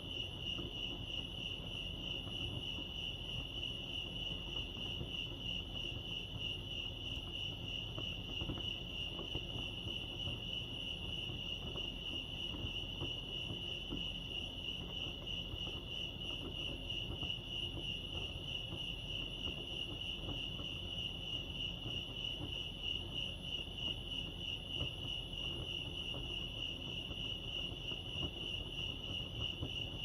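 Crickets chirping in a steady, high-pitched chorus that never lets up, with a rapid pulsing trill.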